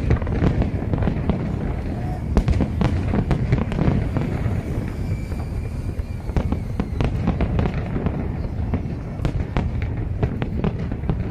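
Aerial fireworks display: a rapid, continuous barrage of bangs and crackles over a steady low rumble.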